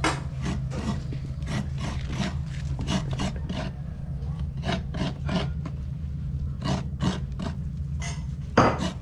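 Coconut being scraped by hand on a coconut grater, in quick, regular rasping strokes of about two to three a second. The coconut is being grated to make coconut milk.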